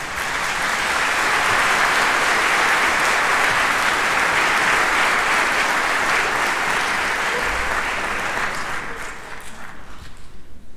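Audience applauding: the clapping swells within the first second, holds steady, then thins out near the end into scattered claps.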